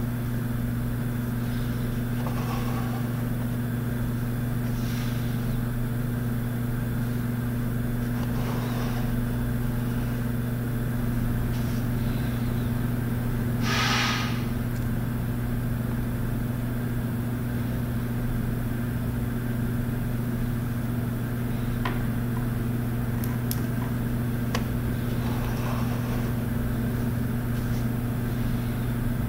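Steady low hum that does not change, with a few faint short noises over it, the clearest about halfway through.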